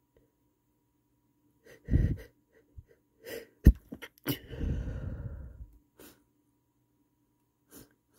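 A man stifling sneezes: a sharp catching breath about two seconds in, then short held-in sneeze bursts, the loudest a little over three and a half seconds in, followed by a long breathy release.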